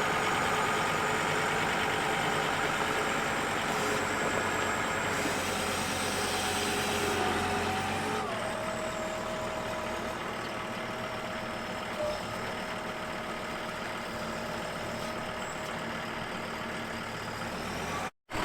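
John Deere tractor engine running steadily; about eight seconds in its pitch drops as the engine slows, and it runs on at the lower speed.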